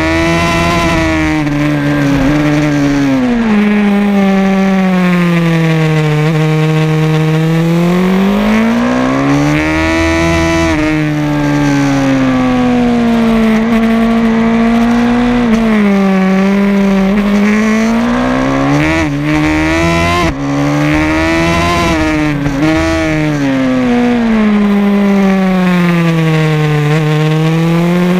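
Race motorcycle engine heard onboard at full racing pace, its note climbing under acceleration and falling as the bike slows for corners, in several long rises and falls. About two-thirds of the way through, the note breaks sharply a couple of times.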